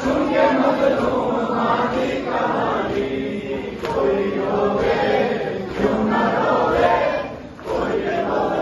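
A group of men chanting a noha in chorus, a Muharram lament sung in phrases of a couple of seconds, with a short break near the end.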